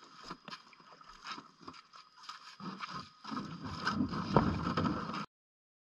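Irregular clunks, knocks and scrapes of packs and gear being lifted out of a canoe at a rocky landing, growing louder in the second half before the sound cuts off abruptly near the end.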